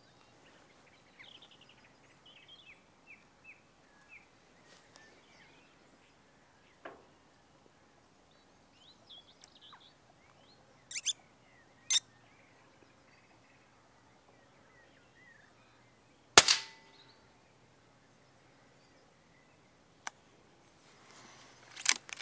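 A single shot from a moderated Daystate Red Wolf PCP air rifle, a short sharp crack with a brief tail, about two-thirds of the way in; it is the loudest sound. Earlier come two short sharp sounds about a second apart, and birds chirp faintly throughout the first part.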